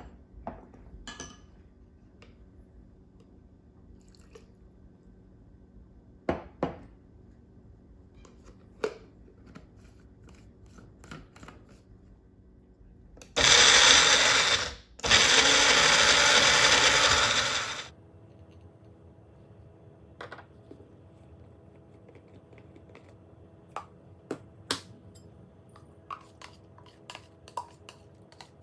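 Electric mixer grinder run in two short bursts, about a second and a half and then about two and a half seconds, with a brief pause between. Light clinks of kitchen utensils come before and after.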